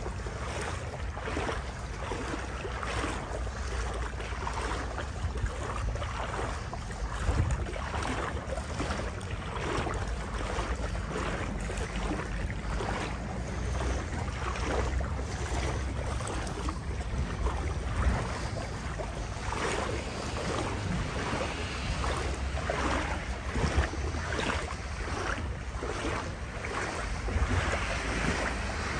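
Footsteps wading through floodwater, a repeated sloshing and splashing about once a second, with wind buffeting the microphone.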